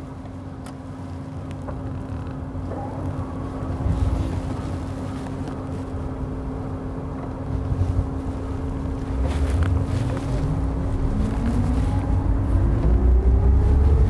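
Rimac Nevera electric hypercar heard from inside the cabin as it pulls away at low speed: a steady electric hum that rises in pitch over the last few seconds as the car gathers speed, over a low tyre and road rumble that grows louder.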